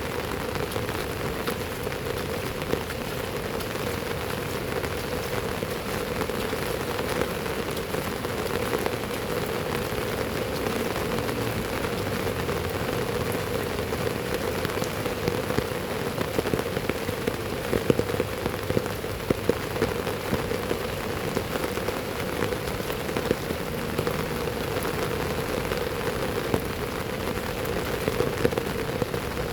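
Heavy rain falling steadily: a constant hiss dense with small drop taps, with a few sharper taps in the second half.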